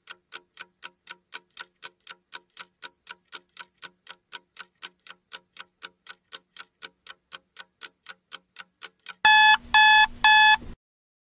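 Countdown timer sound effect: a clock-like ticking at about four ticks a second, then three loud electronic beeps near the end as the time runs out.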